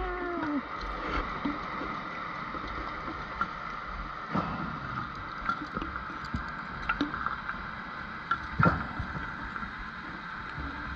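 Underwater sound recorded through a dive camera housing: a steady hiss with a faint steady hum and scattered small clicks, and two short louder bursts about four and nine seconds in, from a scuba diver's regulator exhaling bubbles.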